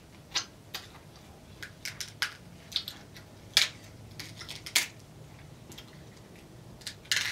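King crab leg shell being cracked and pulled apart by hand: a dozen or so sharp, irregular snaps and crackles, with wet sounds of eating.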